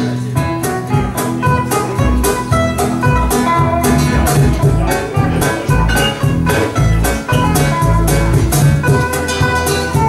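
Live band playing an instrumental passage: electric guitar and keyboard over a double bass line, with a steady cajón beat.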